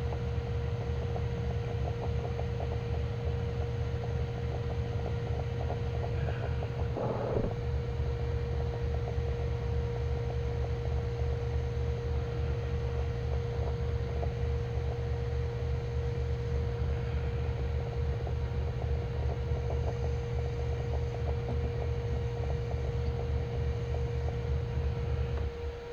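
Lathe running steadily while a hard plastic bushing is turned, with a steady motor hum and whine; it shuts down just before the end.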